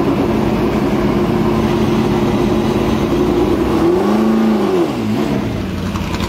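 Ford GT40's V8 idling steadily, then blipped about four seconds in: the revs rise and fall back, followed by a shorter second blip.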